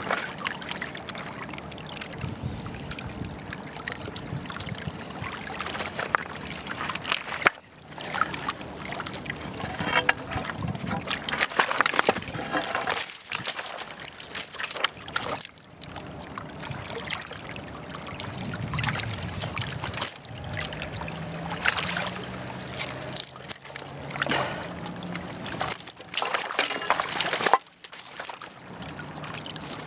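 Water sloshing and trickling close to the microphone, with irregular knocks and a few brief dropouts.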